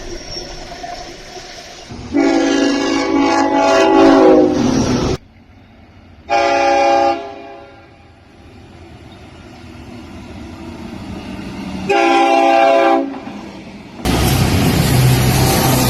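Locomotive air horn sounding a chord of several tones as a train passes, its pitch falling as it goes by, then cut off abruptly. Two shorter horn blasts follow over the growing rumble of an approaching train, then a sudden cut to a loud train passing by.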